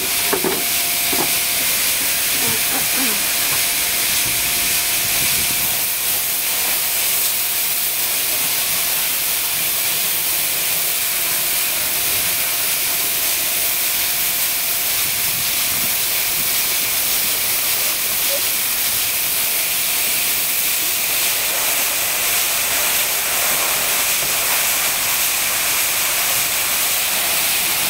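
Ice blown at force through a large flexible plastic hose into a boat's fish hold, making a steady high rushing noise.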